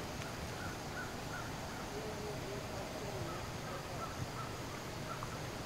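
Outdoor ambience with faint, short bird calls repeating over a steady low background rumble.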